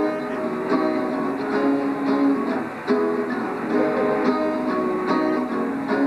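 Acoustic guitar strummed in a steady rhythm of chords, about two strokes a second.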